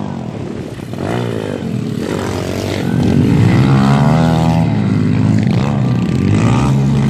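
Several 125cc pit bike engines revving and easing off as they race past on a dirt track, their pitch rising and falling with the throttle. The sound gets louder about three seconds in as one bike passes close by.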